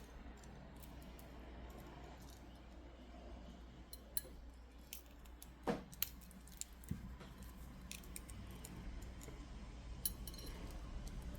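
Faint, scattered clicks and taps of small stone beads being handled while a bracelet is restrung, with a few sharper clicks about halfway through and one near the end, over a low steady hum.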